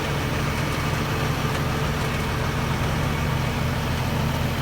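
Heavy diesel engine of earth-moving equipment or a truck running steadily at low revs, a constant low hum.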